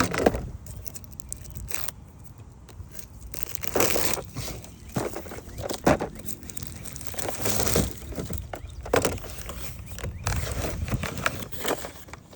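Plastic packaging being crinkled, crushed and torn off a new ratcheting wrench, in irregular rustling bursts with sharp crackles.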